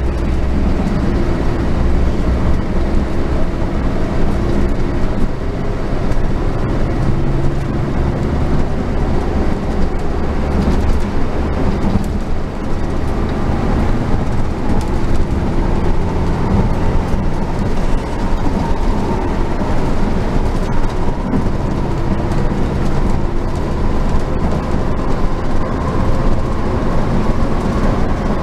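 Scania K380 coach driving, heard from inside the cabin: a steady engine drone with road noise. In the second half a faint whine rises slowly in pitch.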